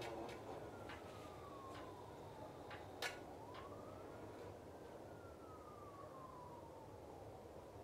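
A siren wails faintly, falling, rising and falling again in a slow cycle. Over it the railroad crossing bell gives a few last, irregularly spaced strikes as the gate arm rises; the bell is sticking in the cold. A single sharp click comes about three seconds in.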